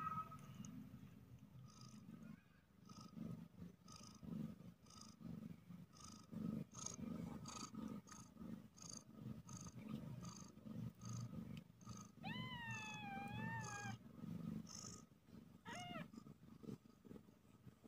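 Mother cat purring steadily while nursing her newborn kittens, over a light ticking about twice a second. About twelve seconds in a newborn kitten gives a long, thin, wavering mew, and near the end a short squeak.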